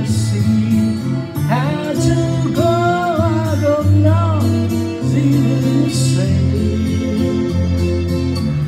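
A man's voice singing into a handheld microphone over an instrumental backing track, with held sung notes in the first half and the accompaniment carrying on alone after.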